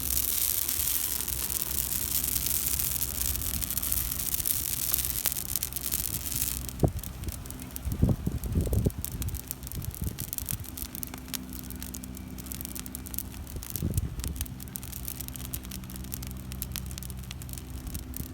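Dead tree catching fire: the flames make a strong rushing hiss for the first six seconds or so, then settle to crackling and popping. Wind gusts buffet the microphone about eight and fourteen seconds in, over a faint steady low hum.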